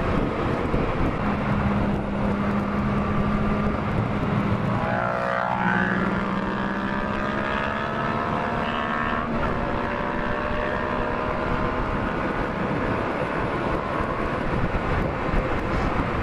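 Sport motorcycle engine running at road speed over a constant rush of noise, heard from the rider's camera. Its note holds steady at first, then about five seconds in it dips briefly and climbs again as the engine pulls.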